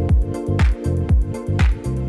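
Background music with a steady electronic dance beat, about two kick-drum hits a second, under sustained chords.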